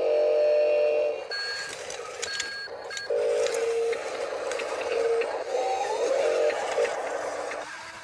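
Toy RC wheel loader's electric drive motors and gearboxes whining as it drives back and forth on gravel, rising in pitch as it speeds up, with stones crunching under the tyres. A few short high electronic beeps sound between about one and three seconds in.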